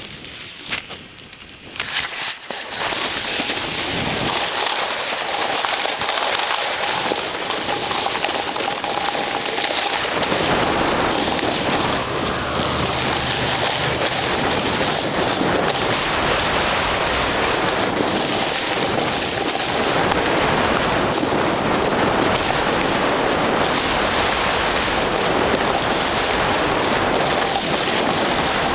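Loud, steady rush of wind on the microphone mixed with snow hissing and scraping underfoot while sliding fast down a snowy slope. It starts after a couple of seconds of quieter handling clicks.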